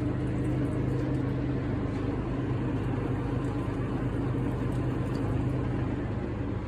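Steady mechanical hum and rumble of a machine running, with a constant low tone under an even rushing noise.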